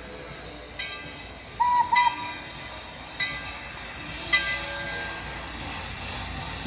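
A Thomas the Train ride train approaching with a steady hiss, and several short high tones, two of them close together about a second and a half in.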